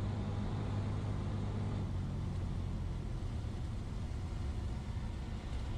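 Cessna 172's engine throttled back during the landing rollout, a steady low drone heard inside the cockpit.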